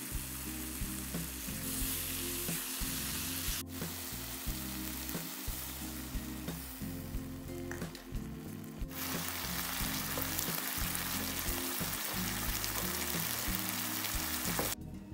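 Oyster mushrooms sizzling in adobo sauce in a ceramic-coated frying pan, a steady hiss that stops shortly before the end, over background music.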